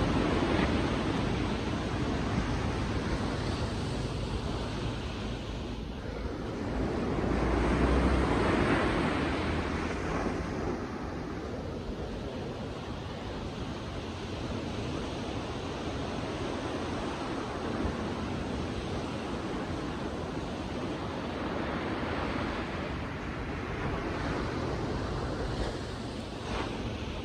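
Sea waves breaking and washing up on a beach, a steady surf that swells and ebbs, with the loudest wash about eight seconds in.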